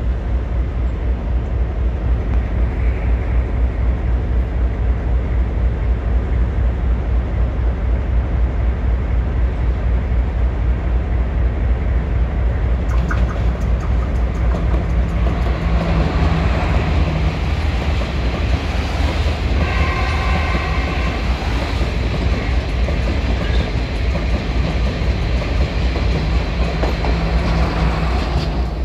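A diesel multiple-unit express train approaches and runs through a station at speed without stopping. A steady low rumble grows fuller as it nears, with wheel clicks over the rail joints starting about halfway in. A short horn blast sounds about two-thirds of the way through.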